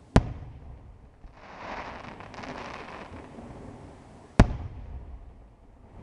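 Two loud aerial firework shell bursts, one just after the start and one about four seconds later. Between them comes a stretch of crackling hiss.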